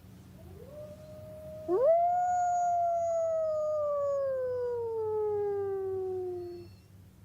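Timber wolf howling: a fainter howl rises and holds, then a loud, long howl swoops up and slowly falls in pitch for about five seconds before breaking off.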